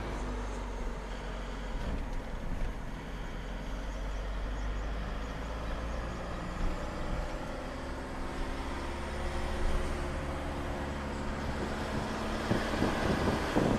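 Vehicle engine and road noise heard from inside the cab while driving at a steady speed: a low, even rumble.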